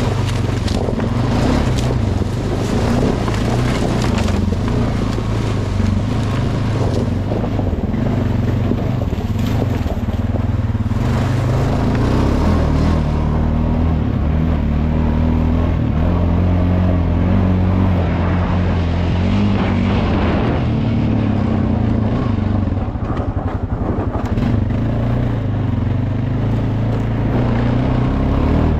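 Honda 420 ATV's single-cylinder four-stroke engine running under way, its pitch rising and falling with the throttle. For roughly the first half the tyres crackle through dry fallen leaves; on grass later the engine is heard more on its own.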